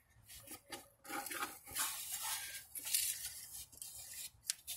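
Irregular clicks and scraping of a wrench turning the nut on a threaded-rod press tool, drawing a harmonic balancer onto an LT1 crankshaft.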